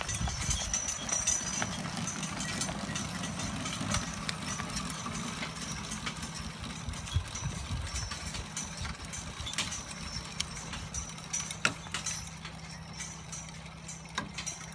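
Horse-drawn compost spreader working as a pair of draft horses pull it: a steady mechanical rumble with scattered clicks and clatter, and hoof clops, fading near the end as the rig moves away.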